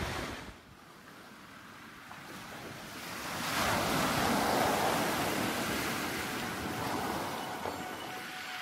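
Ocean surf: a rush of breaking waves swells up about three seconds in, then slowly ebbs.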